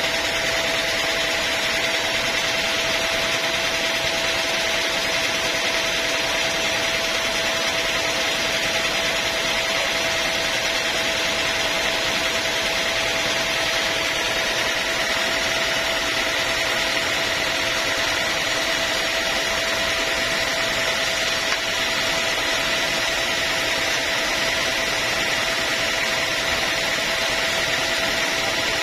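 Sawmill saw machinery running steadily: a constant mechanical whine over an even hiss, with no change in pitch or level.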